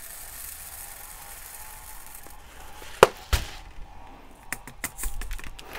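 Silica-gel desiccant beads poured from a can into a funnel, a steady hiss that stops after about two seconds. Then two sharp clicks and a scatter of small ticks: the funnel opening is too small for the flow and the beads spill.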